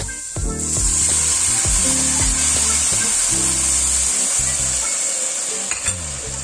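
Asparagus blanching water ladled into a pot of toasting risotto rice and diced asparagus, sizzling and hissing loudly as it hits the hot pan; the hiss starts about half a second in and slowly dies away near the end. Background music plays alongside.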